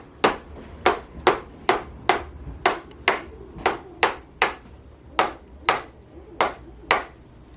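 Hand-held chiropractic adjusting instrument tapping a joint over and over: a sharp click about twice a second, more than a dozen times.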